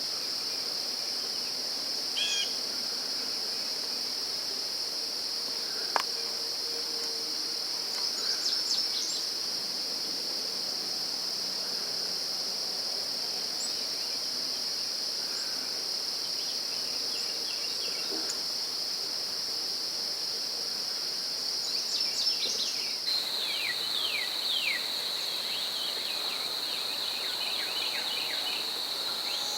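Steady high-pitched insect chorus with songbirds chirping over it: a few quick chirps about eight seconds in and a run of falling notes near the end. One sharp click about six seconds in.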